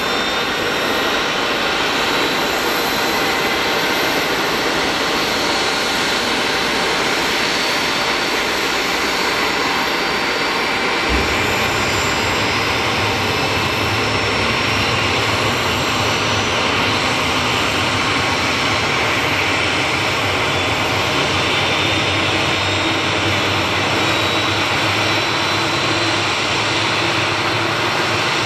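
Boeing 737-400's CFM56-3 turbofan engines running at low taxi thrust: a steady jet roar with a faint high whine that drifts slightly in pitch. A brief low thump sounds about eleven seconds in.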